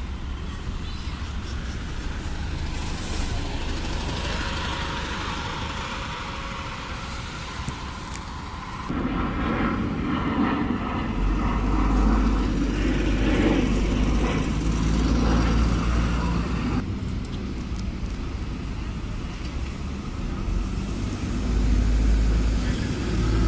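Red London double-decker buses pulling away and driving past close by, their engines running with low hum and road noise. The sound changes abruptly twice as the shots cut from one bus to the next.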